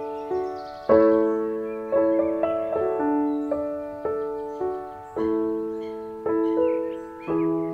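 Background piano music: slow, gentle notes and chords, each struck sharply and left to die away, a new one about every second.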